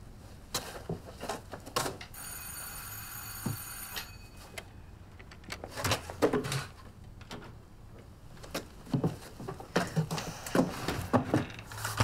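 A bell rings steadily for about two seconds, a couple of seconds in, then stops abruptly. Around it come scattered knocks and clicks, with a cluster near the end.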